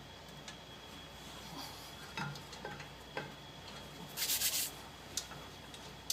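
Scattered light clicks and knocks from brake parts and tools being handled, with one short hissing rasp about four seconds in.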